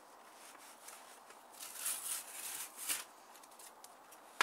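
Torn cardboard and plastic blister packaging rustling and crinkling as it is handled, loudest about halfway through, with a sharp click at the very end.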